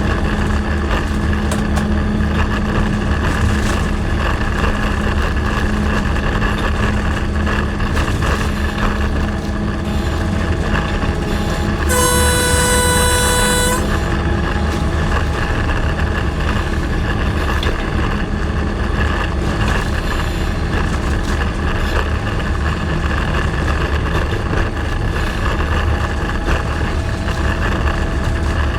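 Diesel locomotive running steadily under load, its engine a constant deep drone. About midway, its air horn gives a single blast of just under two seconds.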